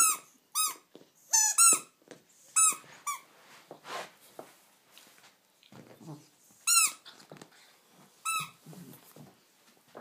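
A red bone-shaped squeaky dog toy squeaking as a cockapoo bites down on it: a string of short, high squeaks, several close together in the first three seconds, then two more spaced out later, with quiet chewing and shuffling between.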